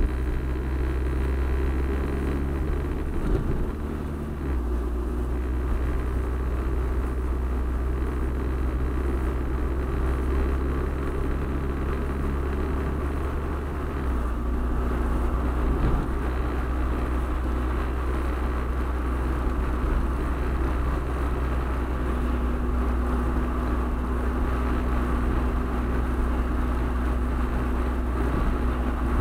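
Car interior noise while driving: a steady low rumble of engine and tyres on the road, heard inside the cabin, with a few faint steady hums above it.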